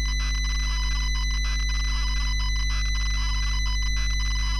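ZX Spectrum 48K loading from cassette tape: the continuous raspy warble of the data signal while the loading screen is drawn, over a steady low hum.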